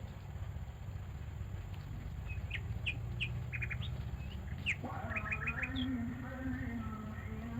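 Forest birds giving a run of short, quick chirps in the middle of the clip, over a steady low rumble. About two-thirds of the way through, a held, pitched tone with overtones comes in.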